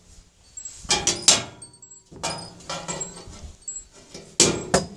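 A handful of sharp knocks and clatters, about five over the few seconds, each followed by a short high metallic ring.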